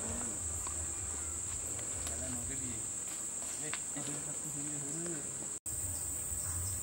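Steady high-pitched drone of insects, with faint low murmurs in the background around two and four seconds in.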